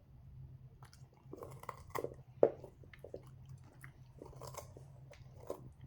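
Border Collie chewing a raw carrot, with irregular crunches as its teeth break the carrot, the loudest about halfway through.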